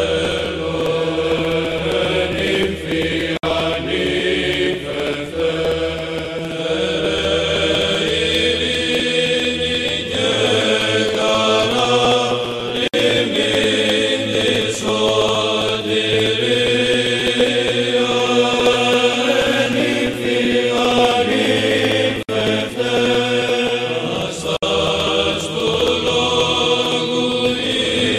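Background music: slow chanted vocal music, long sung notes held over a low sustained drone.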